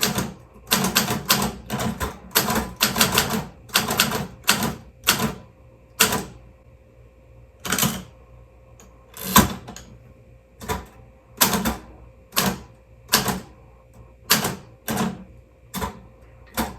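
Manual typewriter keys striking one at a time: a quick run of keystrokes over the first few seconds, then slower, more widely spaced strokes.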